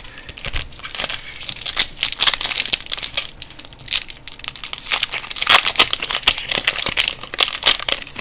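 Foil Pokémon booster pack wrapper crinkling as it is handled and torn open, a dense run of irregular crackles.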